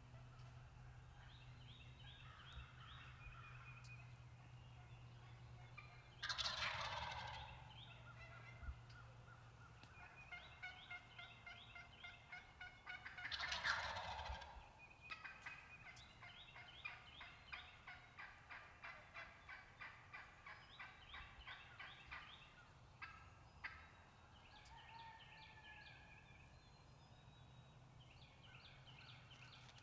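Wild turkey gobblers gobbling twice, about six and about thirteen seconds in, each a loud rattling call of about a second. Between them, songbirds keep up a quieter chorus of rapid repeated notes.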